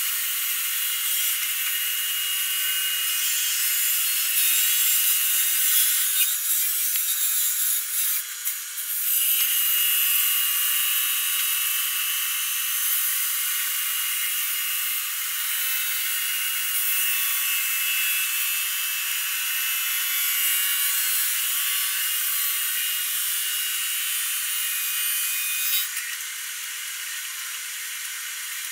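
Marble polishing machine running, its rotating polishing head grinding across wet Ziarat white marble slabs: a steady rasping hiss, dipping briefly about eight seconds in and dropping a little near the end.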